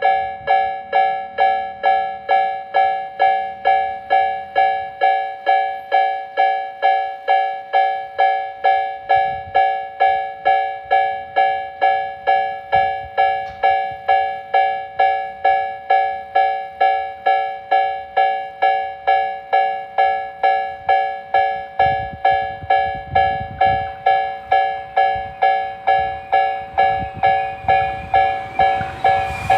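Japanese railway level crossing warning bells ringing steadily at about two strikes a second, two bells of different pitch sounding together. A low rumble joins in over the last several seconds.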